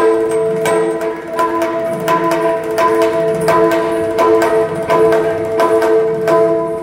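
Yakshagana instrumental accompaniment with no singing. A hand-played barrel drum (maddale) beats an uneven rhythm of about two strokes a second, with bright metallic strikes among the beats, over a steady held drone.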